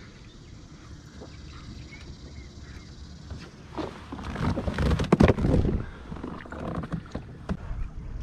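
Knocks and rustling of hands and gear against a plastic kayak, loudest in a cluster of sharp knocks about four to six seconds in, over a low rumble of wind on the microphone.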